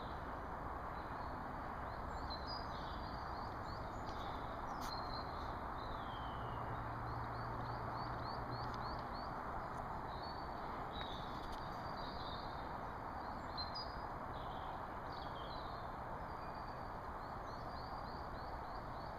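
Small woodland birds chirping and singing in short phrases, again and again, over a steady outdoor hiss.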